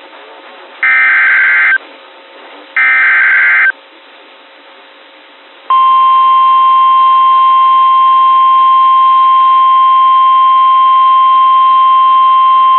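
NOAA Weather Radio EAS alert opening: two raspy, screeching SAME digital header bursts about a second long each, a pause of about two seconds, then the steady 1050 Hz warning alarm tone, which starts about six seconds in and holds. This is the tone sequence that announces a warning, here a severe thunderstorm warning.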